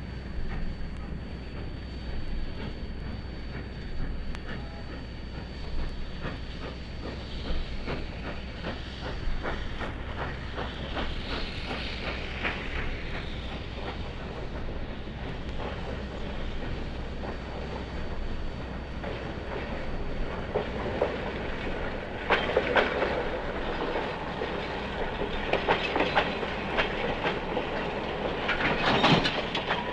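Steam-hauled train running past, its wheels clicking steadily over the rail joints above a low rumble, with louder clattering bursts about three-quarters of the way in and again near the end.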